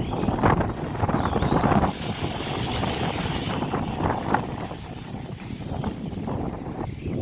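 Tamiya HotShot RC buggy with a brushless electric motor driving on beach sand, with wind on the microphone. The sound surges unevenly, louder in the first two seconds.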